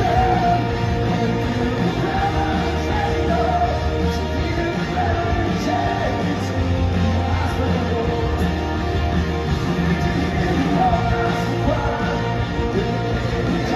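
Live rock band playing with singing over electric guitars, bass and drums, recorded from within the crowd in a large hall.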